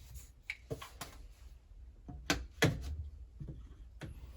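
Scattered clicks and knocks from handling plastic drain pipe and its fittings, with two louder knocks a little past halfway, over a steady low hum.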